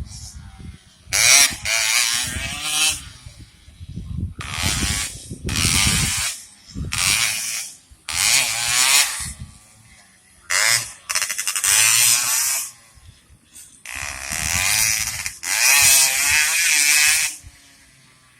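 Racing motorcycle engines revving hard in repeated bursts of a buzzing note, with the pitch wavering up and down, about six times, each burst one to three seconds long with short lulls between.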